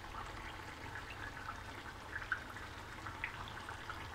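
Chicken and tomato gravy simmering in a karahi on a gas burner: a steady bubbling hiss with scattered small pops and spits over a low hum.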